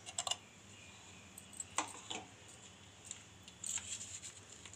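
A few faint clicks and light taps of a spoon against a steel mixing bowl as a spoonful of baking powder is tipped in: a little cluster at the start, two about two seconds in, and a few more near the end.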